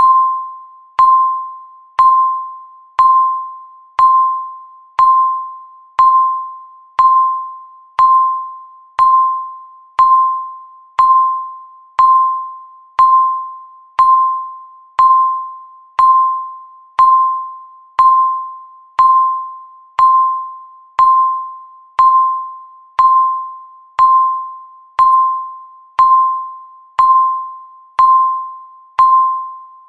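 Countdown timer's tick sound: a bell-like electronic tone struck once every second, each one starting sharply and fading away before the next.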